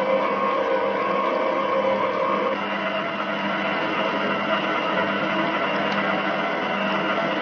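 Electric stand mixer motor running steadily, its beater turning through stiff cookie dough; the hum changes slightly about two and a half seconds in as flour goes into the bowl.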